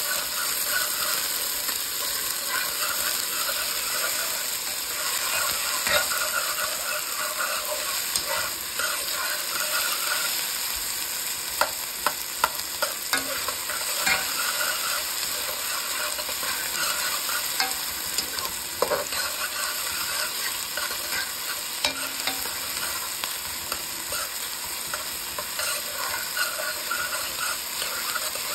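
Chopped onions sizzling as they fry in a metal pot, stirred and scraped with a metal spoon that clicks against the pot now and then.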